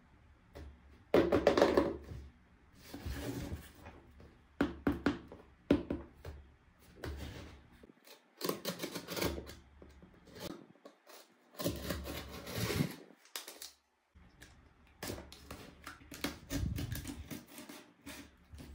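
Hands unboxing miniature toy kitchen pieces: irregular bursts of rubbing and rustling with light clicks and taps, separated by short pauses.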